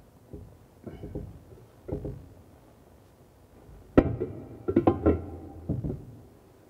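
Ceramic wash basin being shifted and knocked on its pedestal while its seating is checked: scattered light knocks and rubs, then a sharp knock about four seconds in followed by a quick cluster of clattering knocks with a brief ring.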